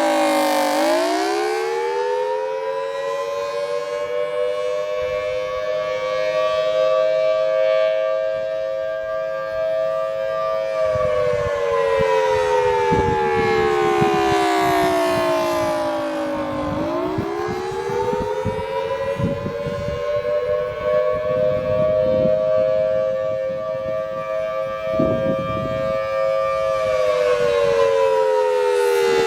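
Federal Signal Thunderbolt 1000AT outdoor warning siren sounding its attack signal on a test. Its wail rises slowly over about ten seconds, levels off, then falls over about six seconds, twice, in two close tones that move together.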